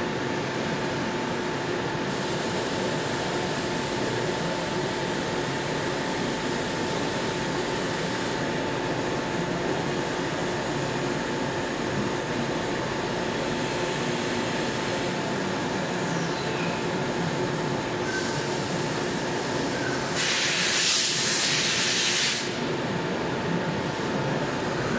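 Mori ZT1000Y CNC lathe running with a steady machine hum and a few held tones. About twenty seconds in, a loud hiss lasts roughly two seconds.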